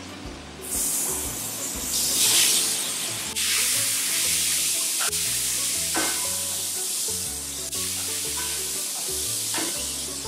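Raw chicken pieces, then chopped leeks, going into hot oil and butter in a frying pan and sizzling, stirred with a wooden spatula. The sizzle starts about half a second in and is loudest around two seconds.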